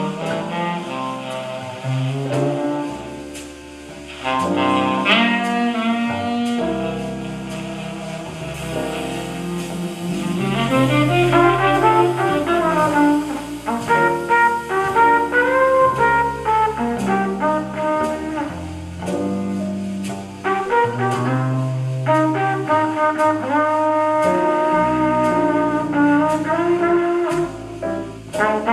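Small-group jazz played from a vinyl record: tenor saxophone and trumpet lines over double bass and drums keeping a steady cymbal beat.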